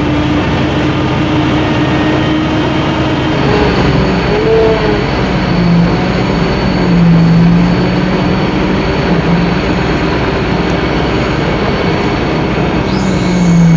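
Scania K-310IA bus's five-cylinder in-line turbocharged diesel engine running with a loud, steady drone. Its pitch dips and rises a little through the second half, and a faint high whine comes in about a third of the way through.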